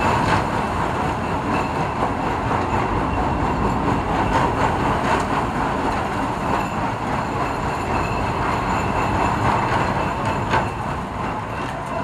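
Tidal Twister roller coaster train running along its steel track on a test run, a steady rolling noise from its wheels.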